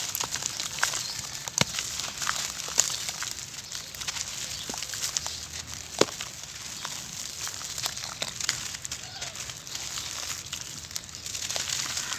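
Hands crushing and kneading dry, dusty grit and crumbly lumps in a bowl: a steady crunching crackle full of sharp ticks, with one louder crack about six seconds in.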